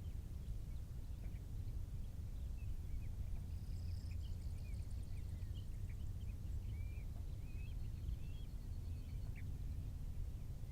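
Small birds chirping again and again, with a brief high trill about four seconds in, over a steady low rumble.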